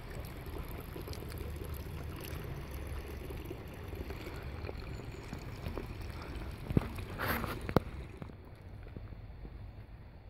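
Steady low rumble and hiss of outdoor background noise, with two sharp clicks and a brief rustle about seven seconds in; the hiss thins out after about eight seconds.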